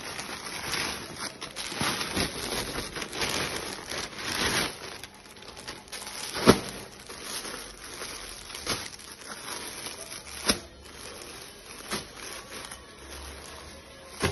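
Clothes and plastic packaging being handled: rustling and crinkling during the first few seconds, then quieter, with a few sharp knocks or clicks.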